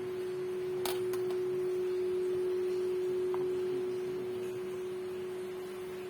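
A steady, single-pitched low hum, with a sharp click about a second in and a second, smaller click just after it.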